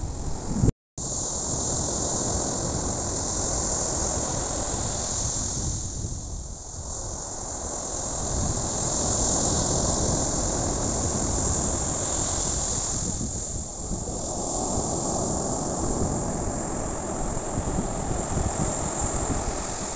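Heavy surf breaking on a sandy beach, a steady rush that swells and eases as each set of waves comes in, with wind on the microphone. The sound cuts out for a moment about a second in.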